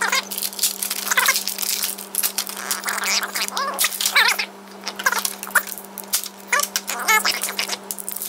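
Knife blade cutting and prying open a clear plastic blister pack: crinkling and crackling plastic, with short squeaks of the blade scraping the plastic. A steady low hum runs underneath.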